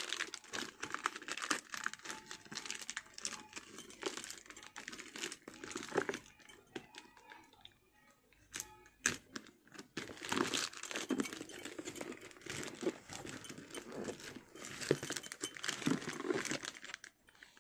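Plastic parcel wrapping and taped packaging crinkling and tearing as it is pulled open by hand, on and off, with a quieter spell about halfway through.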